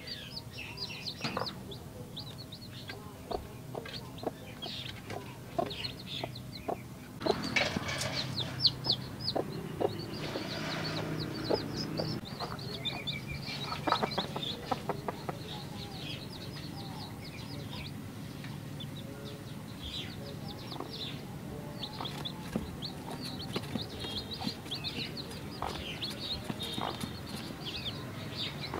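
Two-day-old chicks peeping in many short, high chirps, with a hen clucking low among them for a few seconds about a third of the way in.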